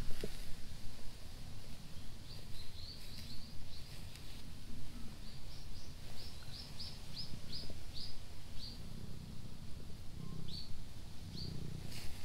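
A small bird chirping in runs of short, high, falling chirps, about three a second, over a low rumble.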